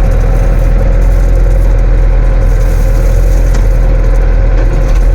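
Bobcat T200 track loader's diesel engine running steadily with a low, even hum.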